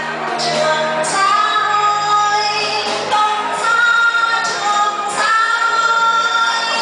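A woman singing into a handheld microphone over musical accompaniment, holding long notes, about a second each.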